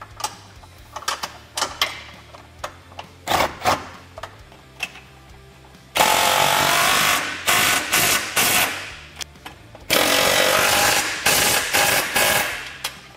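A hand ratchet clicking in short strokes as mounting bolts are turned, then a cordless impact wrench hammering the bolts tight, in two main runs of a second or two each about halfway through and again later.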